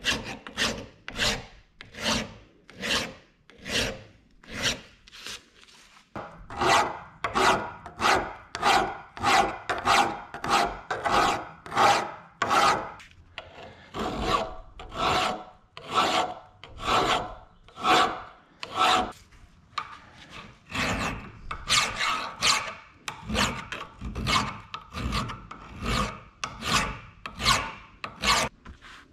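Flat hand file rasping over a cast steel hammer head clamped in a bench vise, filing off casting marks in steady strokes about two a second. From about six seconds in the strokes are louder and carry a ringing tone.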